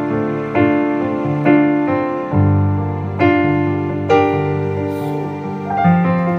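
Background piano music: slow piano chords, with a new chord struck about once a second and dying away between strikes.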